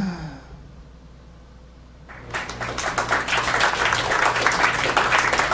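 A held sung note slides down in pitch and ends, and after a short lull of about two seconds a club audience breaks into applause that carries on.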